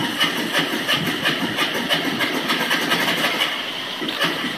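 Loose sheet-metal blades on a BAC cooling tower's centrifugal blower wheel clacking in a rapid, regular rhythm, about four or five clacks a second, as they are worked up and down by hand. The clacking is the sign of blades that have come loose and have play in the wheel.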